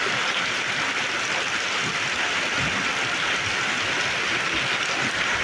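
Heavy rain falling steadily, a dense even hiss of drops with a scatter of small patters and splashes.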